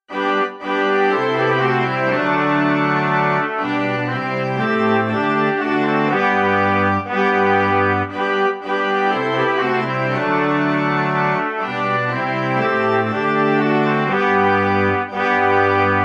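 Instrumental background music: sustained melody notes over a bass line that steps from note to note about once a second.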